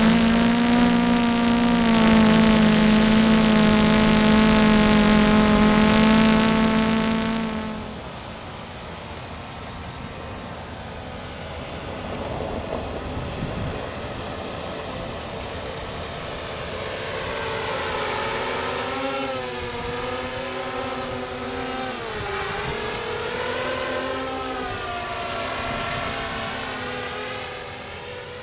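Brushless motors and propellers of a Y6 multicopter whining in flight: a steady, loud pitched drone for the first seven seconds or so, then quieter, with the pitch repeatedly rising and falling as the throttle changes, fading near the end.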